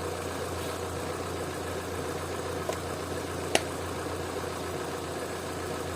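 Opel Vauxhall engine, converted to run on LPG, idling steadily at normal speed rather than at the high idle it had before its throttle body was cleaned. A single sharp click sounds about three and a half seconds in.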